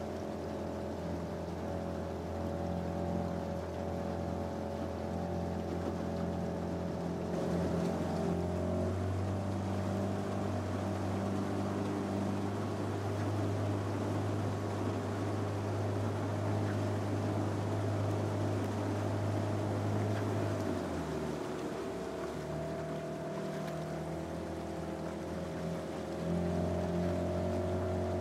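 A boat's motor running steadily, its engine hum shifting in pitch and loudness a few times: up about eight seconds in, down after about twenty, and up again near the end.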